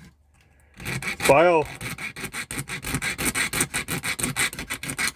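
The small file on a B/Bury 16-in-1 multi-tool scraping back and forth in quick, even strokes, starting about a second in.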